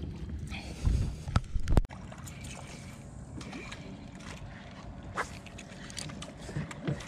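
A few heavy knocks and bumps against a small fiberglass boat hull about a second in, then a steady low background with scattered light clicks.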